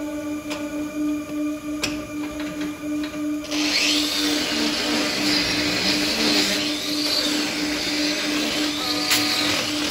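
An electric power tool used for trimming a cow's hoof runs with a steady hum. From about three and a half seconds in, a loud grinding hiss comes in and stays, its pitch swaying as the tool works against the hoof.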